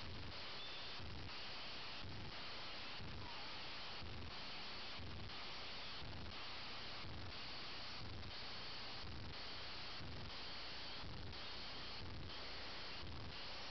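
Steady hiss and low hum of recording noise, with a faint regular pulsing about once a second. No distinct hoofbeats or other events stand out.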